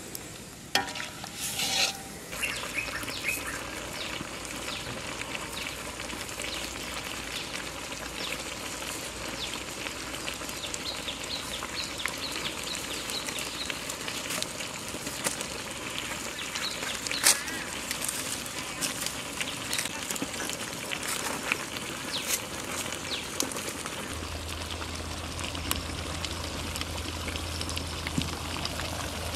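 Stingray pieces frying in spiced masala in a large iron kadai, a steady sizzle and crackle, with a few sharp clicks near the start and once in the middle.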